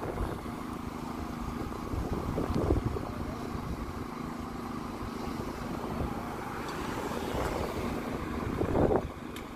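Steady low rumble of idling emergency-vehicle engines with a constant low hum, swelling louder twice, about two and a half seconds in and again near the end.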